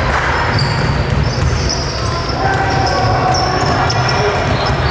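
Basketball being dribbled on a hardwood gym floor during play, with sneakers squeaking in short high chirps, over a steady low rumble in the hall.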